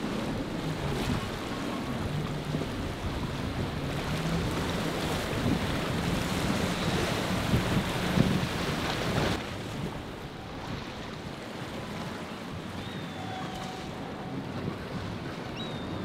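Outboard-powered center console boats running at speed through choppy inlet water: a low engine drone under the rush of wake, spray and chop, with wind buffeting the microphone. The sound drops suddenly to a quieter water-and-wind hiss about nine seconds in.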